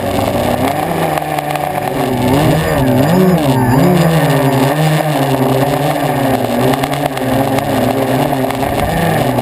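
Radio-controlled model jet's engine heard from a camera mounted on the plane: a steady pitched drone whose pitch wavers up and down with the throttle, swooping up and back down about three seconds in.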